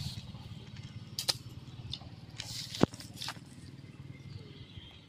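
A stranded fish flopping in the grass: rustling and a few sharp slaps, the loudest a little under three seconds in, over a steady low hum.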